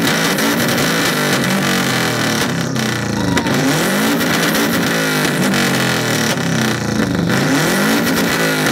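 Straight-piped Subaru Impreza WRX STi (GDB) turbocharged flat-four, stationary, revved up and down over and over. The pitch climbs and falls roughly once a second through a loud, raw open exhaust.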